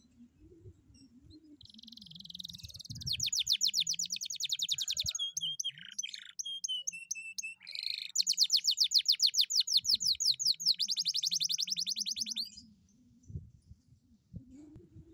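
Domestic canary singing: a long trill of very fast repeated notes a few seconds in, a few slower whistled notes, then a second long rapid trill that stops short before the end.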